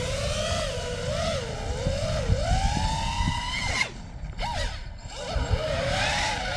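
FPV freestyle quadcopter's brushless motors and propellers whining, the pitch swooping up and down as the throttle changes. About four seconds in the throttle drops almost to nothing for around a second, with a few quick blips, then comes back up, as in the throttle-down yaw of an inverted yawspin.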